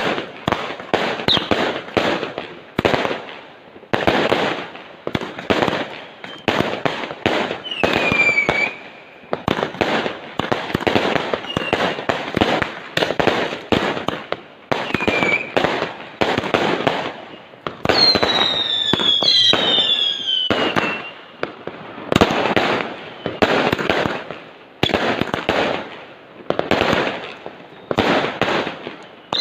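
Fireworks going off one after another: rapid bangs and crackling, with several whistles falling in pitch, the longest about 18 to 21 seconds in.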